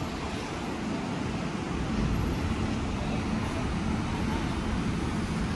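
Steady street traffic noise: a low rumble of cars and engines with no single event standing out.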